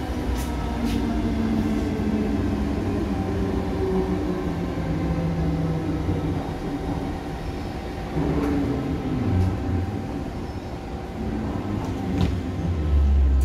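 MTR M-Train electric multiple unit heard from inside a carriage while running: a steady rumble of wheels on rail with the traction motors' whine shifting slowly in pitch, and a few light clicks. A heavier low rumble swells near the end.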